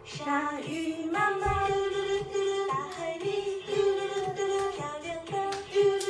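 A children's song: voices singing a held melody over a steady beat.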